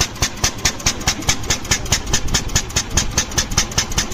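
Single-cylinder engine of an 1886 Benz Patent-Motorwagen idling just after being hand-started by swinging its open horizontal flywheel. It fires in sharp, even beats about four times a second.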